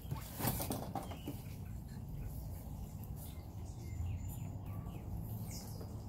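Quiet outdoor background: a steady low rumble, a few brief rustles in the first second, and faint short bird chirps.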